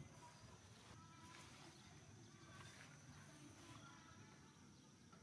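Near silence: faint outdoor ambience with a few faint short chirps.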